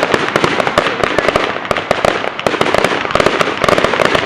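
Fireworks going off in a dense, rapid barrage of overlapping bangs and crackles, many per second without a break.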